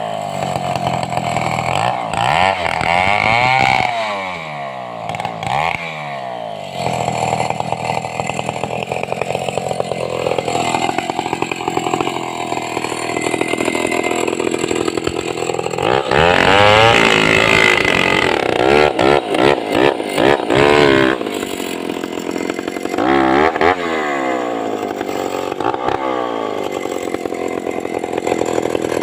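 Large Stihl two-stroke chainsaw running hard through a sengon log, its engine pitch sweeping down and back up again and again as the load changes. It is loudest from about sixteen to twenty-one seconds in.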